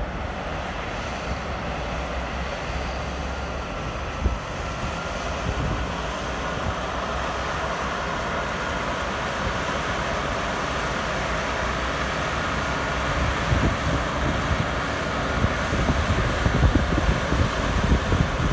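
Challenger MT965E tractor's diesel engine working steadily under load as it pushes chopped corn silage up a pile with its front blade, with a faint steady whine over the engine. Wind buffets the microphone, in heavier gusts over the last few seconds.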